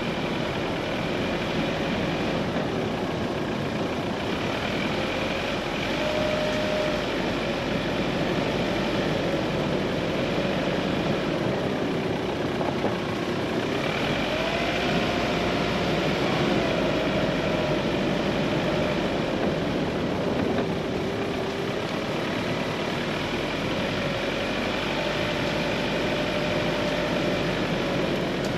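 A 4x4's engine running and its tyres on the road as it drives along a narrow country lane, heard from the vehicle's front grille: a steady rush of road noise with an engine note that slowly rises and falls with speed.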